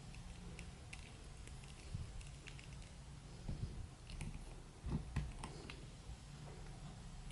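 Faint scattered clicks and taps of a plastic action figure and its packaging being handled, with a few louder knocks around five seconds in.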